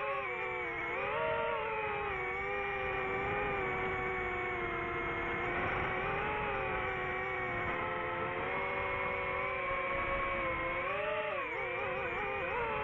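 DJI FPV drone's motors and propellers whining in flight, the pitch sliding up and down with throttle changes, dipping about a second in and wavering near the end.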